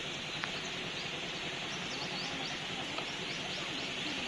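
Open-air countryside ambience: a steady high hiss with a run of short bird chirps through the middle, and one brief click about half a second in.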